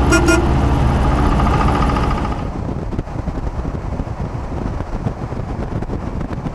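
A road vehicle driving, heard from inside the cab: engine and road rumble, with two quick high-pitched tones right at the start. About two seconds in the sound cuts to a steadier, slightly quieter rumble of road and wind noise.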